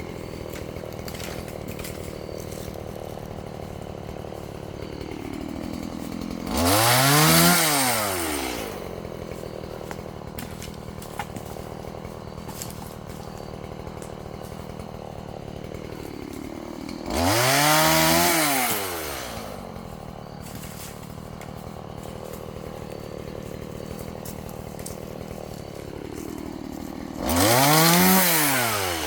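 Chainsaw engine running at idle, revved up briefly three times about ten seconds apart, each rev rising in pitch and then dropping back to idle.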